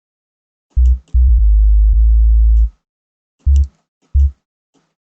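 Deep synthesized sub-bass notes from a 3x Osc synth set up as a heavy car-audio style bass, played in the piano roll: a short hit, a long note held about a second and a half, then two more short hits.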